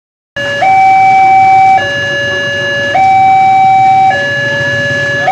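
Indonesian railroad level-crossing warning signal (genta) from a loudspeaker horn on the crossing post: an electronic two-tone alarm switching between a low and a high note about every second, starting about half a second in. It warns of an approaching train while the barrier closes.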